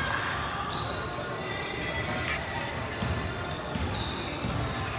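A basketball bouncing on an indoor gym court during a game, with several brief high squeaks heard among the bounces.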